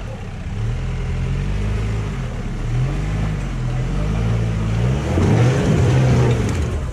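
Off-road 4x4's engine revving up and down under load, swelling into a louder, harder rev about five seconds in before easing off near the end.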